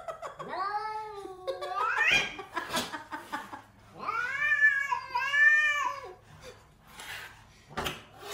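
Domestic cat giving two long, drawn-out yowling growls, the first rising in pitch at its end and the second wavering: a defensive growl at a stranger outside the window.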